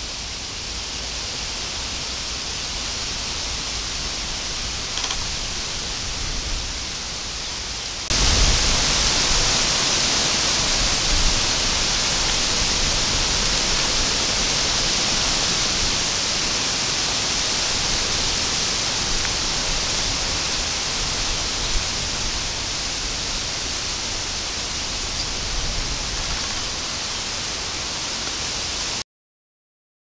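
Wind blowing through the trees: a steady hiss that gets louder about eight seconds in and cuts off abruptly just before the end.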